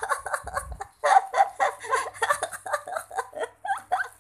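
A high-pitched voice chattering fast, with no clear words.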